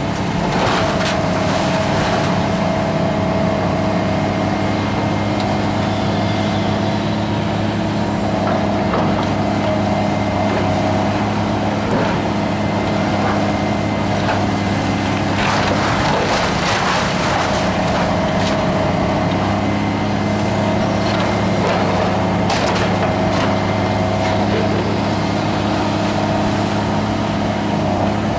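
Hydraulic excavator's diesel engine running steadily, with several bursts of crunching and clatter from demolition debris as the building is pulled apart.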